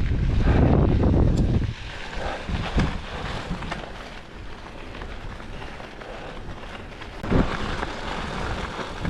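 Wind buffeting the microphone while riding a bicycle, heavy for the first couple of seconds, then easing to a lower steady rush, with another short gust about seven seconds in.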